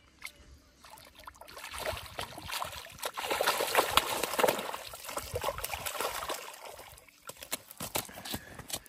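Water sloshing, splashing and trickling as a caught carp is handled at the water's edge, with many small splashes and drips that swell about two seconds in and ease off near the end.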